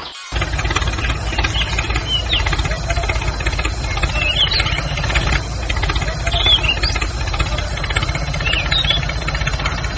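Diesel tractor engine running with a steady low knocking chug that comes in just after a brief gap at the start. Short high chirps are scattered over it.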